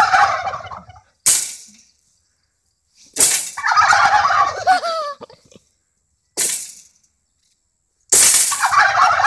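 A flock of domestic turkey toms gobbling together in three loud rattling bursts: around the start, about 3 s in and about 8 s in. Between the bursts come two short sharp noises. The gobbling is the toms' answer to loud noises.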